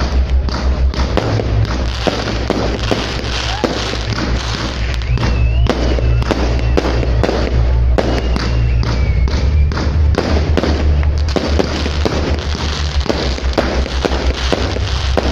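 Fireworks display going off in a rapid, continuous run of bangs and crackling reports, many to the second. A few rising and falling whistles sound in the middle of the run.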